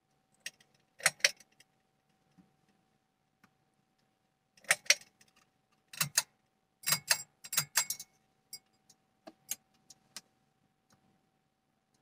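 Pull-chain switches of a Quorum Capri ceiling fan being worked: clusters of sharp clicks with the metal ball chains jangling, about a second in and again between about 5 and 10 seconds in, as the switches are clicked through their settings and the fan motor started. A faint steady hum runs underneath.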